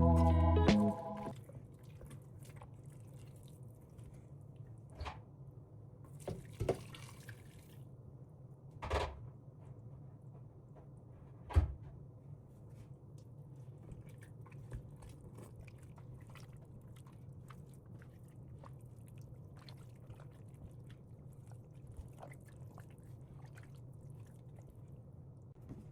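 Background music cutting off about a second in, then a steady low hum with a few scattered light knocks and clicks, the sharpest near the middle.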